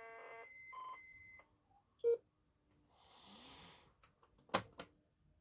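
ZX Spectrum cassette loading signal: the tape's data tones for the SpecDrum program play through speakers and stop about one and a half seconds in as the load completes. A short beep follows about two seconds in, then two sharp clicks near the end.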